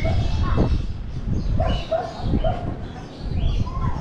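A dog barking several times in short barks, over a steady low rumble.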